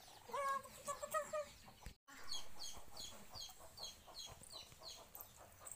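Small animals calling: a few short rising calls in the first second or two, then, after a brief break, an even run of high, falling peeps, about three a second.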